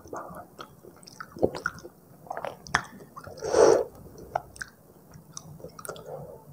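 Close-miked chewing of instant fried noodles: wet mouth smacks and clicks. About three and a half seconds in there is one longer, louder sound.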